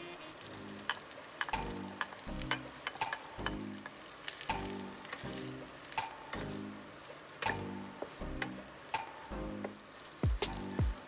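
Corn kernels frying in melted butter in a pan, sizzling, with sharp clicks and scrapes from a wooden spatula stirring them. Background music with a steady beat plays underneath.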